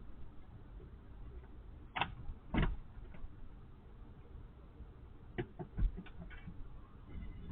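Scattered knocks and clicks over a steady low hum, picked up by a doorbell camera's thin-sounding microphone: two sharper knocks about half a second apart around two seconds in, then a quick run of lighter taps past the five-second mark.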